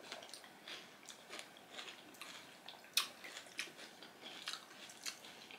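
Faint chewing and crunching of crisp pani puri shells, with scattered small crackles and one sharper click about three seconds in.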